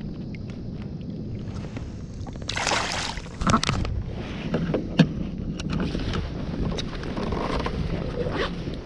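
Wind on the microphone aboard a fishing kayak, with small knocks and clicks of handling on the boat. There is a brief noisy burst about two and a half seconds in, another just after, and a sharp click about five seconds in.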